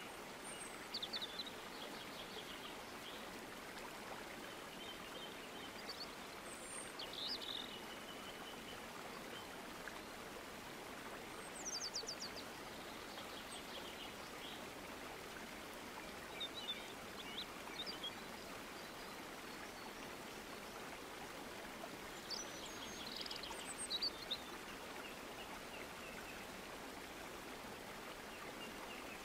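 Nature ambience: a steady rush of running water, with birds giving short high chirps every few seconds.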